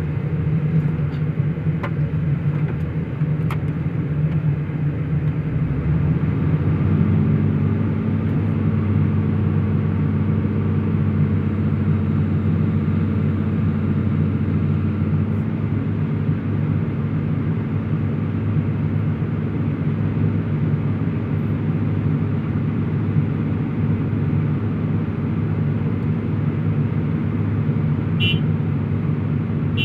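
Heavy-equipment diesel engine running steadily. It picks up speed about six seconds in and eases slightly about halfway through.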